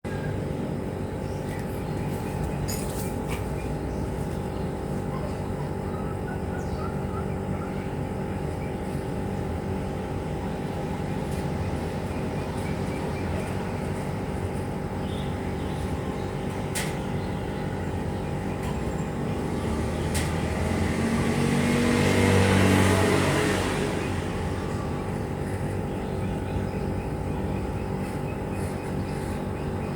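Steady low background hum with a few faint clicks, and a passing vehicle that swells and fades about 21 to 24 seconds in.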